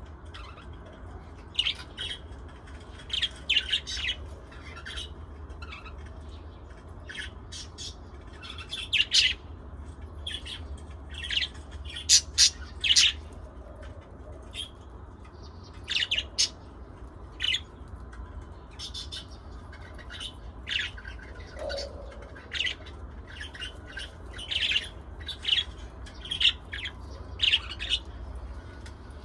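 Small pet parrots, lovebirds and budgies, giving short, sharp chirps and squawks in irregular scattered bursts, over a steady low hum.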